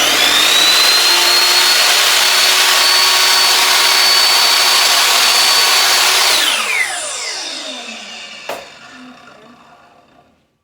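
Miter saw motor switched on with nothing being cut. The blade spins up to a steady high whine and holds for about six seconds. Then the trigger is released and the blade coasts down with a falling whine, with one sharp click during the run-down.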